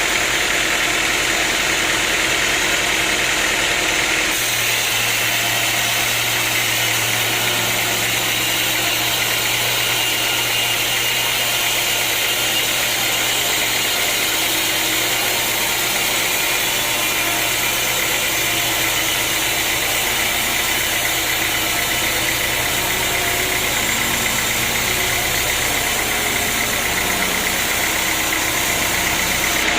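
Sawmill machinery running steadily: an engine-like drone under a high hiss. About four seconds in, the sound shifts and a steady low hum comes in.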